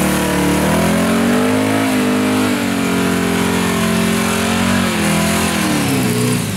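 Holden VH Commodore V8 held at high revs in a burnout, its note rising and falling as the throttle is worked, over the steady screech of the spinning rear tyres. The revs drop away right at the end.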